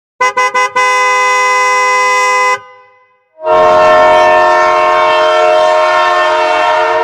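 Vehicle horn: four quick short beeps, then held for about two seconds. After a short pause, a second, longer horn blast with a chord-like sound is held for about four seconds.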